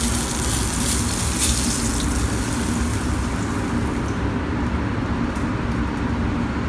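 Butter and oil sizzling in a frying pan just after the steak is lifted out, the hiss dropping away about four seconds in, over the steady rush and low hum of a commercial kitchen exhaust hood.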